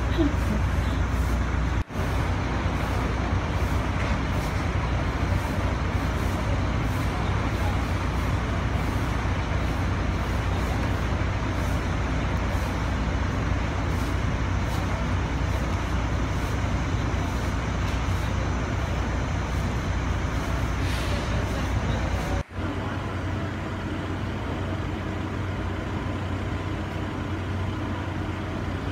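Steady engine and road rumble of a bus. The sound drops out briefly twice, about two seconds in and again later, and the low rumble is weaker after the second dropout.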